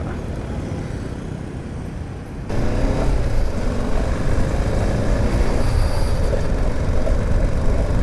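BMW GS motorcycle on the move, its engine and road noise running steadily, stepping up sharply in loudness about two and a half seconds in as the throttle opens.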